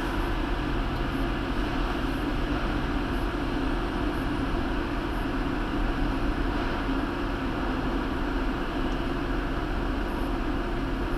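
A steady, low mechanical drone with a constant hum underneath, unchanging throughout.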